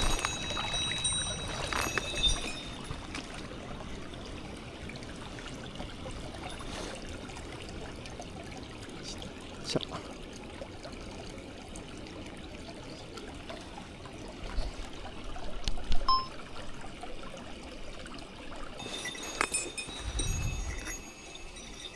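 Mountain stream water running and trickling steadily, with a few sharp knocks, the loudest about two-thirds of the way through. Thin high-pitched tones are heard near the start and again near the end.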